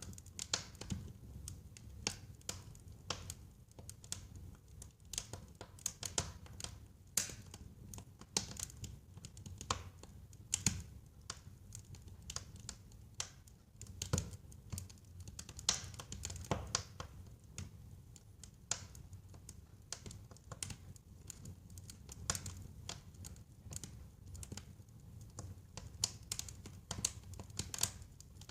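Wood fire burning in a fireplace, crackling and popping with irregular sharp snaps over a low steady rumble of the flames.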